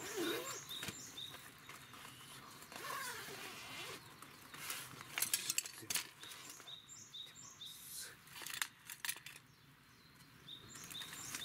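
A zippered fabric cooking-utensil case being handled and opened, with sharp clicks and clinks of the metal tools inside, loudest about halfway through. A bird's short, high chirps repeat in the background.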